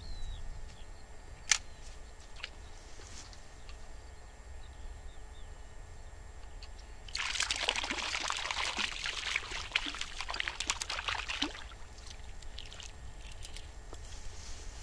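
A hooked fish splashing and thrashing at the surface of a stream for about four seconds, starting about seven seconds in. A single sharp click is heard about a second and a half in.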